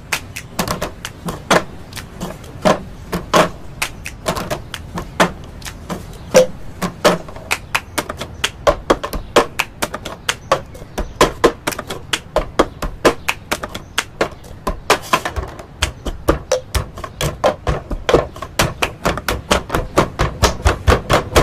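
A plastic tumbler and hands striking a granite countertop in a cup-game rhythm: sharp taps, slaps and knocks several a second, coming faster in the last few seconds.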